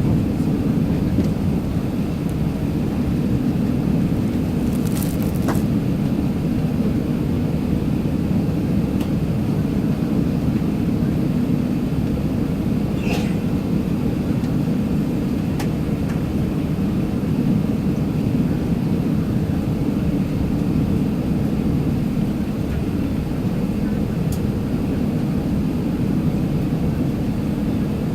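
Steady cabin noise inside an Airbus A380-861 under power: an even low rumble of its GP7270 engines and the airflow, with a few faint clicks.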